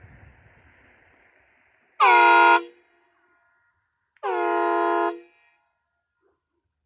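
Three-chime air horn sounding two short blasts: a loud half-second one about two seconds in and a longer, slightly quieter one about four seconds in. Each chord sags in pitch at the onset, then holds steady.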